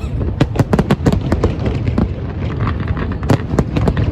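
Fireworks display going off: a dense run of rapid bangs and crackles, several a second, over a continuous low rumble.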